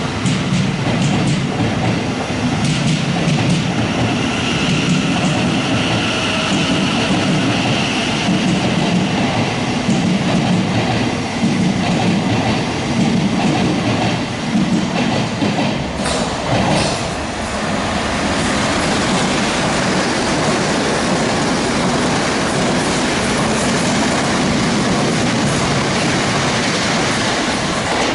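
Loud, steady noise of a South Western Railway electric multiple-unit train moving along the platform, its wheels running on the rails. About sixteen seconds in, the noise shifts.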